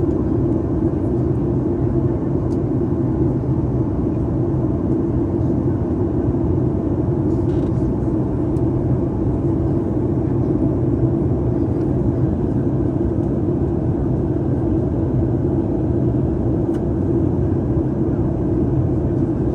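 Steady cabin drone of a Boeing 737 MAX 8 in flight: its CFM LEAP-1B turbofans and the rush of air over the fuselage, heard from inside the passenger cabin as an even, low hum.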